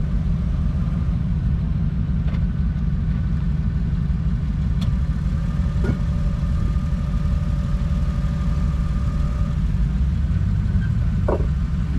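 Jeep Wrangler's engine idling and crawling at low revs over rock, with a steady low rumble and a few faint clicks.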